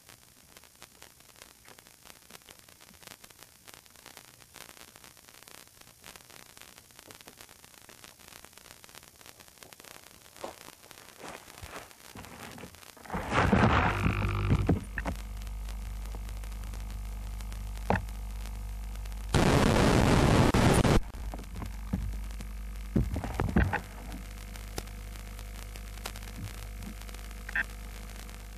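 Hiss and static on the FPV plane's video-link audio. Partway through it jumps to a louder steady hum with knocks and crackles as the landed plane is picked up, and about two-thirds of the way through a loud burst of hiss lasts a second or two.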